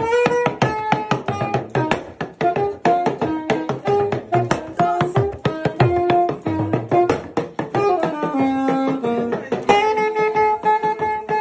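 Background music with a quick, busy beat of hand-drum-like strikes under short melodic pitched notes.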